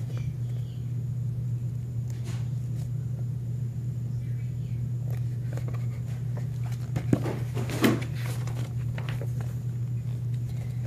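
Handling noise from a paperback picture book being lifted, shown and lowered: scattered rustles and knocks, two sharper ones about seven and eight seconds in. Under it runs a steady low hum.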